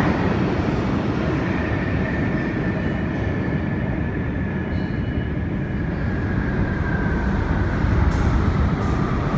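New York City subway train running, a steady rumble with a thin high whine that slowly falls in pitch.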